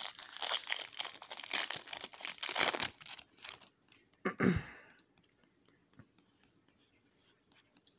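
Foil booster-pack wrapper being torn open and crinkled by hand, a dense crackle for about three seconds. A short puff of noise comes near the middle, then faint ticks and rustles as the trading cards are handled.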